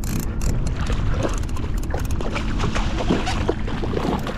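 Water splashing and sloshing in irregular crackles as a hooked yellowfin tuna thrashes at the surface beside a kayak, over a steady rumble of wind on the microphone.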